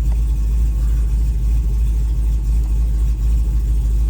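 Cammed supercharged LSA V8 of a Cadillac CTS-V idling, heard inside the cabin as a steady deep rumble.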